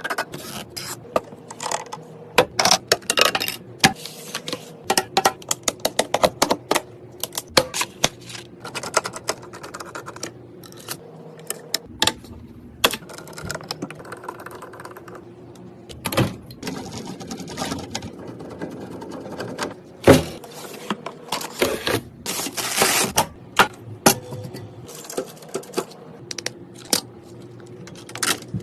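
Irregular clicks, taps and scrapes of computer parts being handled and fitted together by hand during a PC build, with a faint steady hum underneath.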